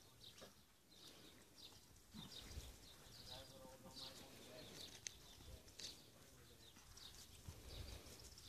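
Quiet farm ambience: small birds chirping over and over in the background, with one distant livestock bleat about three seconds in.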